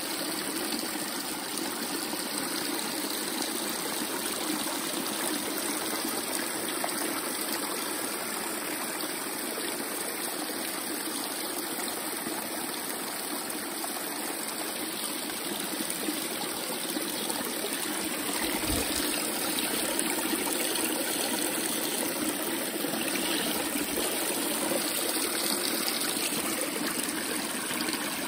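Small brook trickling and splashing over stones, with water spilling over the rim of a wooden trough; a steady, even rush of water that grows slightly louder in the second half.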